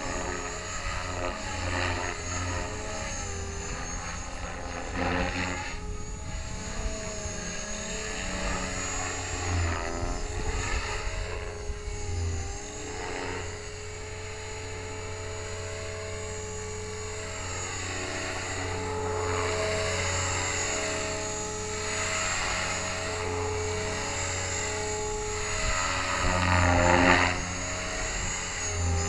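Align T-Rex 500 ESP electric model helicopter in flight: its main rotor blades whooshing and its motor and gears whining, the pitch of the whine wavering up and down as it manoeuvres. A louder whoosh swells near the end.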